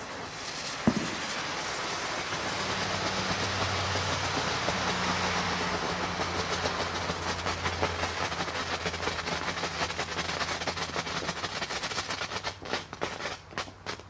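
Black Cat 'flashing signal' novelty firework burning: a steady spraying hiss with a low hum, a sharp pop about a second in, and a quick run of crackling pops near the end.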